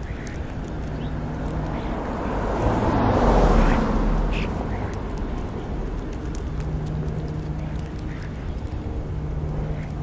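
European starlings feeding and giving harsh calls close to the microphone, over a steady low hum. A broad swell of noise rises and fades about three to four seconds in.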